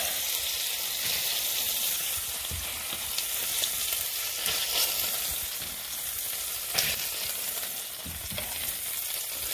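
Rabbit pieces sizzling as they fry in hot oil in a pan, a steady hiss, with one sharp click about seven seconds in.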